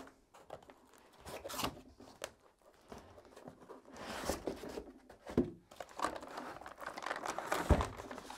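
Cardboard box being opened by hand: flaps scraping and folding back, and packaging rustling and crinkling as the wrapped contents are slid out, with a dull knock near the end.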